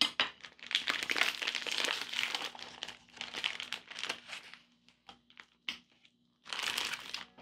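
Plastic vacuum-sealed meat packaging crinkling and rustling as it is pulled open and the skirt steak slid out, in irregular bursts with a short pause before a last burst of crinkling near the end.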